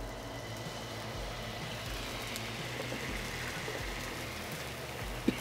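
White wine and lemon juice sizzling as they are poured into a hot sauté pan of oil, shallot and garlic, deglazing it: a steady hiss. A single short click near the end.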